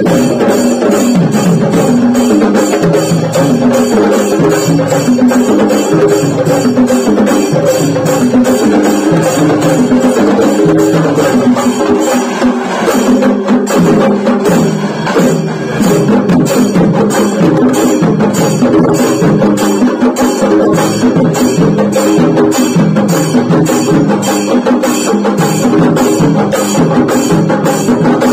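Traditional festival music: a melody over a steady, evenly repeating drum beat, loud and unbroken.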